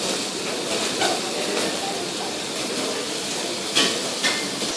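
Chicken pieces searing in hot oil in a pan, a steady sizzle, with two short sharp clicks near the end.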